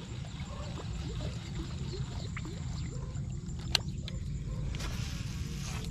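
Water sloshing and trickling around an angler wading in floodwater, with faint handling noises and one sharp click a little under four seconds in.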